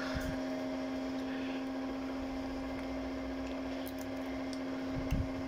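Steady low electrical hum holding one pitch, with a fainter higher tone over it, and a faint knock about five seconds in.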